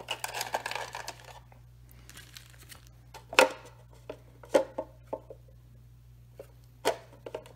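Packaging rustling and crinkling for about the first second and a half, then a few separate sharp clicks and knocks as the hard plastic planter unit and its lid are handled; the loudest knock comes a little before the middle.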